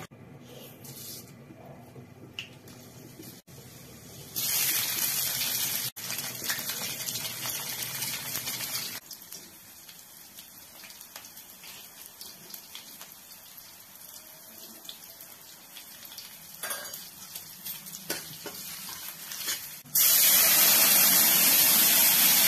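Gram-flour (besan) and water mixture poured into a steel kadhai of hot tempering, giving a loud, steady hiss that starts suddenly near the end. Before it come quieter stretches of pouring and hissing from the cooking.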